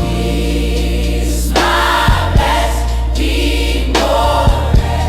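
Gospel music: a choir singing sustained chords over a steady bass and drum beat, the voices coming in strongly about one and a half seconds in.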